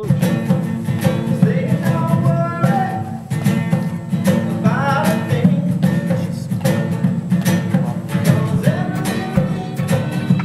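Acoustic guitar strummed in a steady rhythm over a continuous low didgeridoo drone, with a voice singing over them in short phrases.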